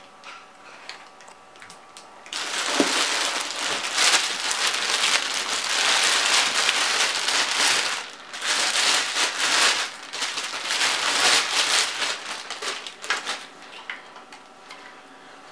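Thin plastic bag crinkling and rustling as it is worked off a telescope mount, in two long loud spells with a brief pause between, easing off near the end.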